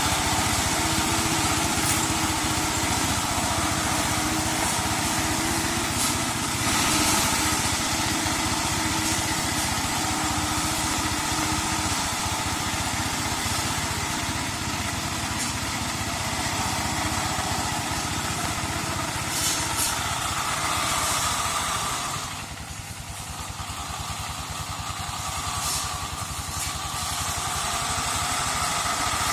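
Engine of a two-wheel hand tractor converted into a brush mower, running steadily as it cuts through undergrowth. The sound drops for a few seconds about three-quarters of the way through, then picks up again.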